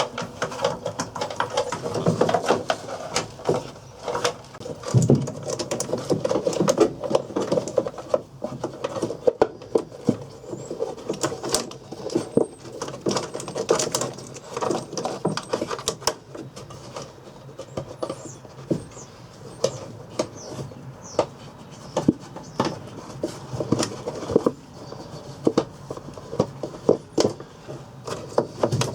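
Hands working on a pickup truck door: an irregular run of small clicks, taps and knocks of metal and plastic parts being handled and fitted, with a few faint high squeaks.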